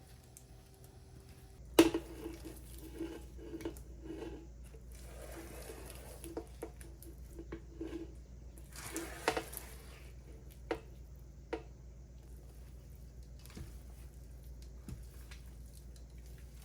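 Household objects being handled: a sharp knock about two seconds in, then a run of light taps, clicks and soft rustles that thin out after about twelve seconds.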